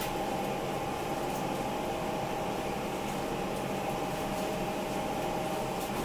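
A kitchen appliance fan humming steadily, with a faint steady whine over an even whir.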